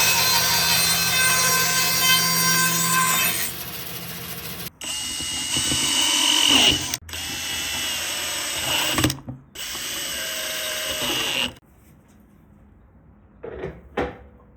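Power tool running on the wood in several short cuts, steady at first, with its pitch sliding in places, then stopping abruptly; near the end two brief knocks.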